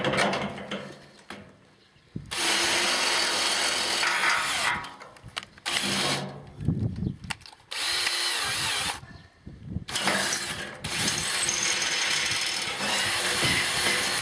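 Cordless drill-driver running in several bursts, drilling, with short pauses between runs. The longest run comes near the end.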